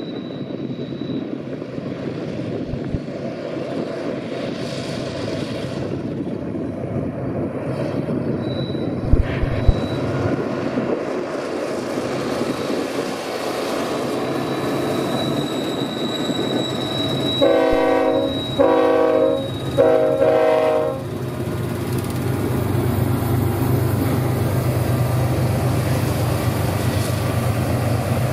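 BNSF freight train's GE ES44C4 diesel-electric locomotives working upgrade with a steady rumble. About two-thirds of the way through, the air horn sounds three blasts of about a second each. Afterwards the low engine drone grows louder as the locomotives pass close.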